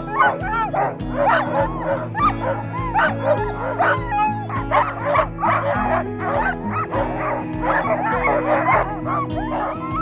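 A team of harnessed sled dogs barking and yipping, many dogs at once in quick overlapping calls, eager to run. Background music with a steady beat plays underneath.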